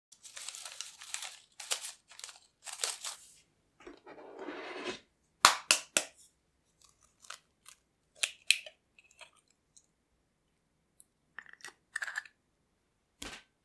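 Baking paper crinkling as it is crumpled in the hands, then sharp cracks of eggshells about five and a half seconds in, followed by light taps and clinks of shell and glass bowls as the eggs are separated, with a soft knock near the end.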